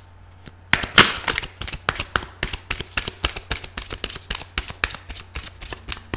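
A deck of Angel Answers oracle cards being shuffled in the hands to draw another card. A quick run of sharp card snaps, several a second, starts about a second in and is loudest at the start.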